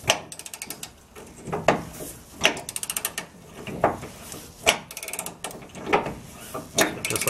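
A socket ratchet clicking in quick runs as it is swung back and forth to tighten a frame bolt, with a sharper knock every second or so.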